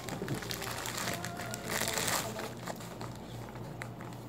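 Grey plastic courier bag crinkling as hands tear it open and pull out a boxed pedal, loudest in a burst about two seconds in.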